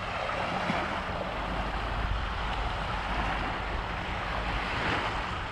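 Lake Huron waves washing on the shore, swelling and easing a few times, with wind buffeting the microphone in a low rumble.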